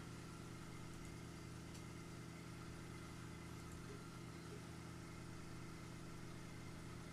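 Faint, steady low hum from running equipment, unchanging throughout, with no motor movement or laser pulse heard.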